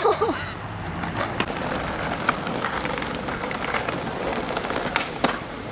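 Skateboard wheels rolling over paving stones, with a few sharp clicks and knocks from the board, the loudest near the end.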